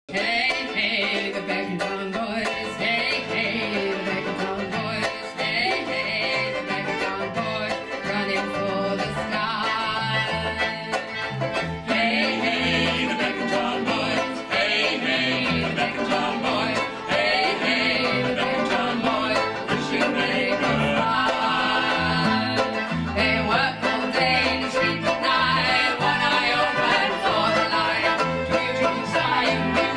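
Acoustic folk band playing a song: concertina and fiddle with strummed and plucked strings and a bass line, and a woman singing.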